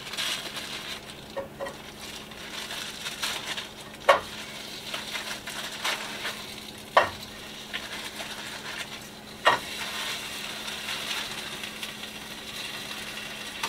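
Sausages sizzling and frying in a pan on a gas stove burner, a steady hiss broken by a few sharp knocks, about four, seven and nine seconds in.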